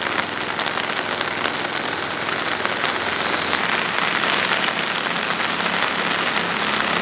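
Heavy monsoon rain falling on a flooded paddy field, a steady dense hiss of drops striking the water.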